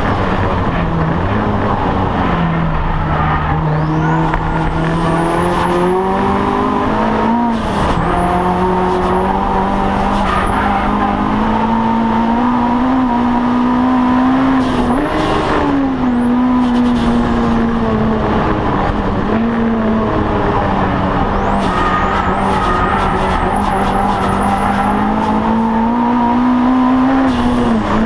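Audi TT race car's engine heard from inside the cockpit at racing speed, its note climbing and falling, with a few sudden breaks in pitch from gear changes, about a third of the way in, around halfway and near the end. A thin high whine rises and falls with the engine.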